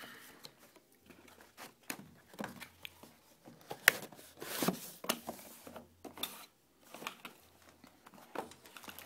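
Cardboard packaging being handled: box flaps opened and an inner cardboard tray slid out, giving irregular clicks, rustles and scrapes. The sharpest snap comes about four seconds in.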